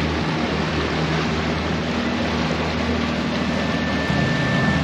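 Yamaha 242S jet boat under way: a steady engine drone with the rush of churning water from the jet wake.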